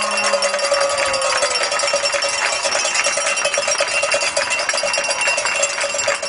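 A cowbell struck rapidly and evenly, about five times a second, over the noise of a crowd in the stands.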